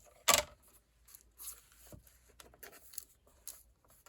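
Paper being trimmed and handled: a sharp click, then soft rustling and scraping of paper with a few light clicks.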